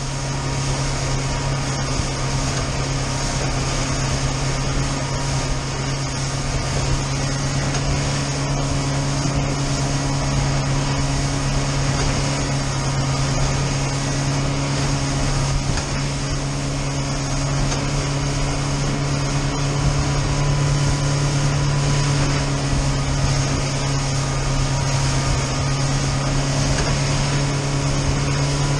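Fishing boat's engine running steadily under way, heard from inside the enclosed cabin as a constant low drone over a rush of water and wind noise.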